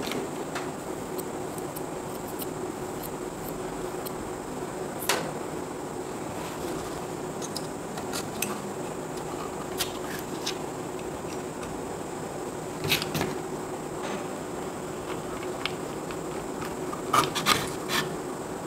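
Scattered small clicks and taps of a MOSFET and tools being handled on a charger circuit board: one sharp click about five seconds in, a few around the middle and a quick cluster near the end, over a steady background hum.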